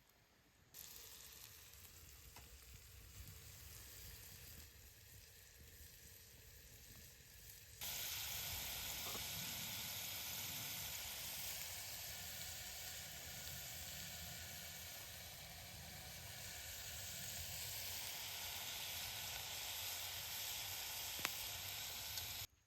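Food sizzling as it fries in a pan over a campfire, a steady hiss that jumps louder about eight seconds in and cuts off abruptly near the end.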